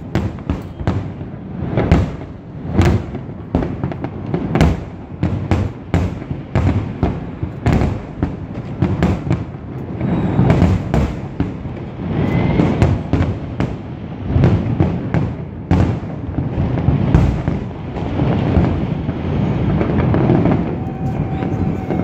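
A fireworks display: a dense, continuous barrage of aerial shell bursts, many bangs a second over a steady rumble, heard from across the harbour.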